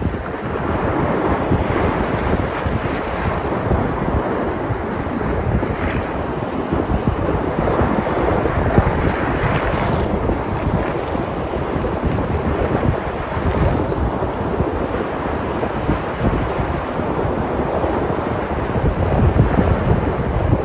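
Sea surf breaking on the shore, a continuous wash that swells and eases every few seconds, with wind buffeting the microphone.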